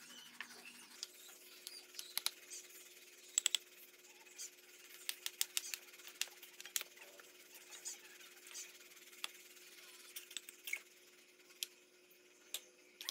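Light, irregular clicks and taps of a mason's trowel on brick and mortar during bricklaying, over a faint steady hum.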